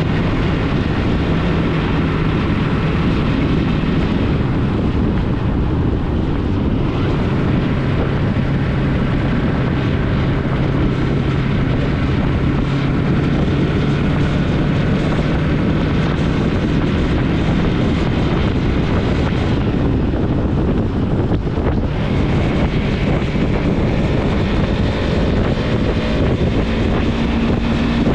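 Yamaha MT-03 motorcycle engine running under way on a rough dirt trail, with wind buffeting the microphone. The engine note holds fairly steady, dips a little about eight seconds in, and rises near the end as the rider speeds up.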